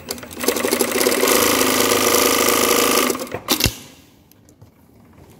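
Industrial single-needle lockstitch sewing machine stitching at a steady fast speed for about three seconds, then stopping with a few clicks and a sharp knock. It is sewing with a knot caught in the thread at the take-up lever, which throws the stitch tension off.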